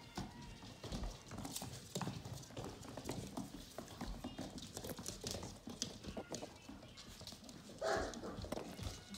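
Vizsla puppies' claws and paws clicking and pattering on a hardwood floor as they scamper and wrestle, with one short, louder cry about eight seconds in.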